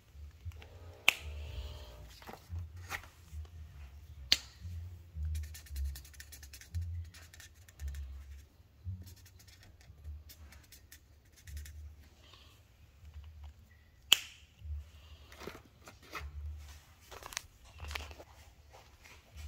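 Muffled rubbing and bumping of clothing against a phone's microphone, with a few sharp clicks, the loudest about a second in, about four seconds in and about fourteen seconds in, and fainter ticks of paper handling.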